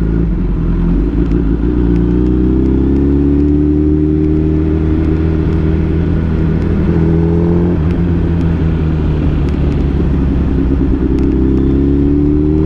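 Suzuki Hayabusa's inline-four engine running at low revs under light throttle. Its pitch climbs gently a second or so in, eases off around the middle, and rises again near the end.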